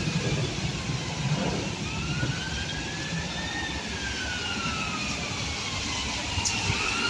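Ambulance siren wailing, its pitch rising and falling slowly over a few seconds at a time, over steady traffic noise.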